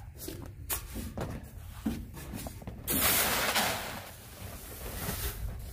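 Dried oat grain poured from a plastic basin into a bulk bag: a rushing hiss about three seconds in that lasts under a second and tails off. Light scrapes and knocks come before it.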